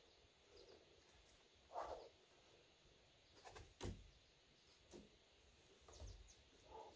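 Near silence broken by a few faint, short taps and scuffs of a climber's hands and climbing shoes on the rock, the sharpest about four and five seconds in.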